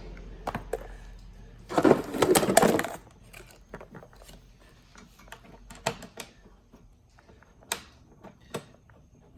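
A ratchet wrench clicks rapidly for about a second, running a Loctited bracket bolt down, followed by scattered clinks and taps of the tool and metal parts.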